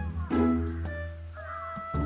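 Background music: plucked notes over a low, held bass.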